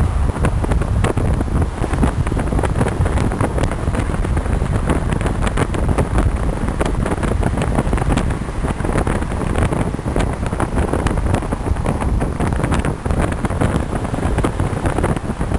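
Wind buffeting the microphone of a camera in a car moving at speed, over steady road and tyre noise, with a constant low rumble and crackling.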